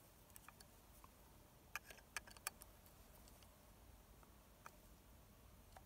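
Faint clicks of a Victorinox Swiss Army knife's screwdriver blade turning the screw of a rifle's butt plate, four close together about two seconds in and a couple more near the end, over near silence.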